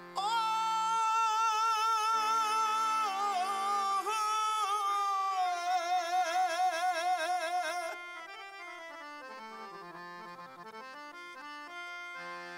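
A man's voice singing a long, high held note with wide vibrato in a Punjabi Sufi folk song, over instrumental accompaniment. About eight seconds in the voice stops and the accompaniment plays on alone, a melody of stepped held notes moving downward.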